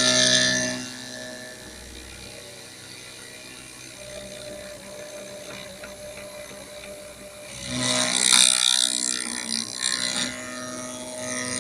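Milling cutter machining an oven handle: a machine runs with a steady hum, and loud, hissing cutting passes come at the very start and again from about eight to ten and a half seconds in.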